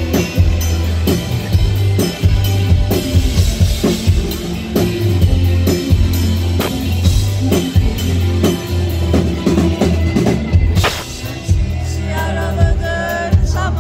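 Live rock band playing, heard from the audience: a steady drum-kit beat over a heavy bass line, with a loud crash about eleven seconds in and singing coming in near the end.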